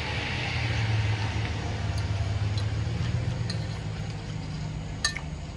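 A steady low mechanical hum, with a few light clinks of a metal fork against a ceramic bowl as it twirls the food.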